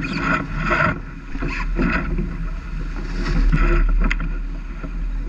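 Water rushing and splashing along the hull of a J/70 keelboat sailing fast downwind, swelling in several surges over a steady low rumble.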